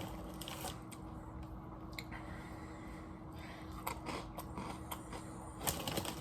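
A person chewing and crunching chips with dip close to the microphone, with a few scattered sharp crunches and a denser run of crunching near the end.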